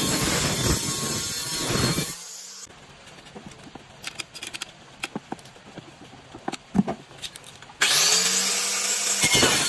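Yamasu YMS-110R handheld tile cutter (1050 W, 110 mm blade) cutting through ceramic tile with a loud grinding hiss, which stops about two seconds in. A few metal clicks follow as a wrench works the cutter's base-plate bolt. About eight seconds in, the motor starts and the cutter bites into tile again.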